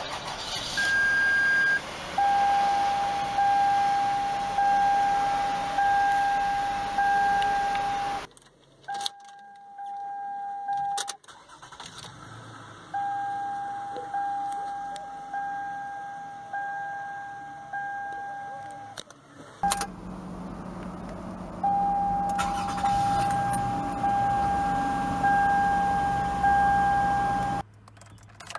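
Toyota Sienna dashboard warning chimes from three model generations. Each is a single-pitched ding repeating about once every 1.2 s and fading after each strike, with the engine running underneath and sharp clicks where the clips change.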